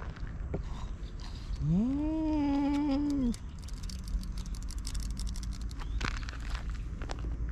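A cat gives one long, drawn-out meow about a second and a half in, rising then falling in pitch. Light clicks and rustles follow.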